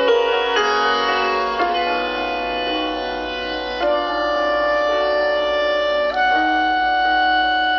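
Slow instrumental music: sustained chords that change every second or two.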